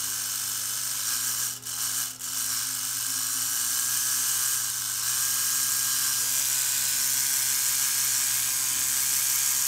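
Drive mechanism of an Oral-B Triumph Professional Care electric toothbrush running out of its housing, with a steady whirring buzz. It cuts out briefly twice, about one and a half and two seconds in.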